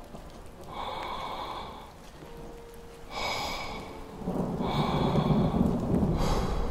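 Ambient film soundtrack of airy noise swells: three washes about a second in, at three seconds and from four seconds on, the last the longest and loudest with a deep rumble under it.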